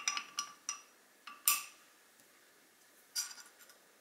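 Small metal BOROM scope-mount parts clicking and clinking as they are handled and fitted together: a quick run of light clicks, a louder clink about a second and a half in, and another short cluster of clinks near the end.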